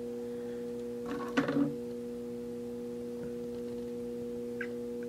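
Steady electrical hum made of several fixed pitches sounding together, with a brief soft sound about a second and a half in.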